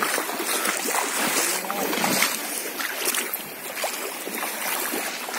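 Shallow seawater sloshing and splashing, with uneven small splashes over a steady wash of water noise.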